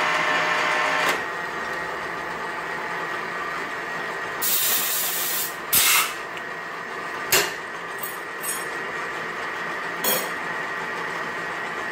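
Production lathe with a Hall collet chuck running steadily with a faint high whine. Around the middle there is a short hissing burst, followed by several sharp metallic clicks and clunks as the chuck's lever is worked.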